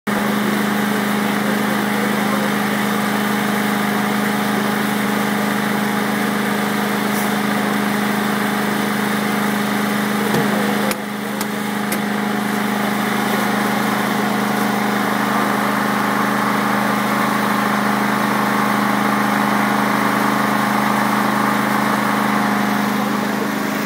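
An engine running steadily at a constant speed, giving an unbroken hum, with a brief dip in level about eleven seconds in.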